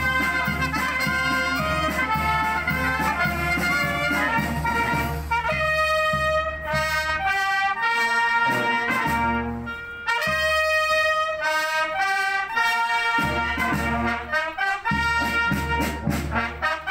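A brass band, mostly trumpets, playing a slow tune in long held chords, with short breaks between phrases.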